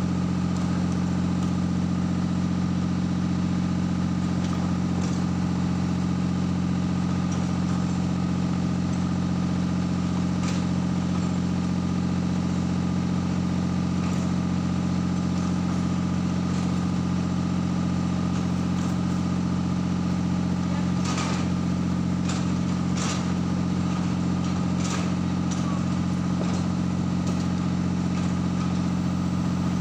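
Heavy construction machinery engine running steadily at constant speed. A few sharp knocks come about two-thirds of the way through.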